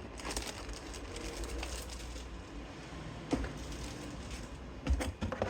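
Faint handling of a laptop's cardboard box and packing: light rustling with a few soft knocks, the clearest about three seconds in and near the end, over a low steady hum.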